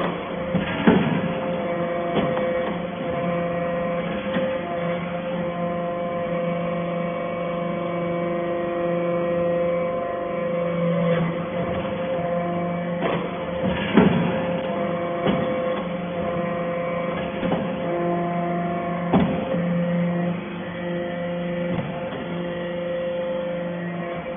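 Hydraulic baler press for stainless steel chips running: a steady motor-and-pump hum, with several sharp metallic knocks, the loudest about a second in, around the middle and a few seconds later.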